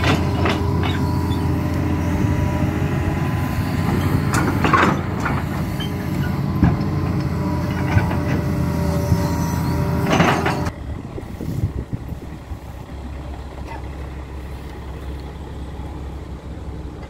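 Hydraulic excavator's diesel engine running hard under a steady whine, with several sharp metal clunks as the bucket moves. About ten and a half seconds in the engine drops off suddenly to a much quieter low run.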